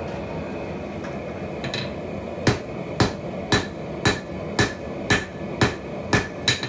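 Hand hammer striking a hot cable-Damascus billet on a steel anvil during a forge-welding heat, setting the weld. A couple of light taps, then steady blows about two a second, each with a short metallic ring.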